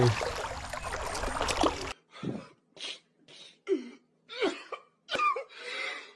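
About two seconds of rushing stream water, then an abrupt cut to a run of about seven short coughing sounds separated by silence.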